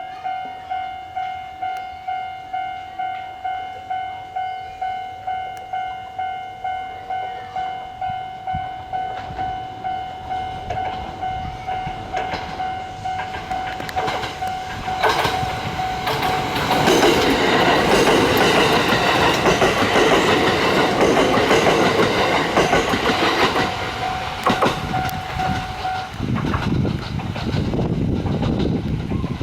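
Japanese railway level-crossing alarm ringing in steady, evenly repeated dings. About fifteen seconds in a train passes through, and the rush and clatter of its wheels swamp the bell for roughly ten seconds. The bell stops about 26 seconds in, while the rumble of the train carries on.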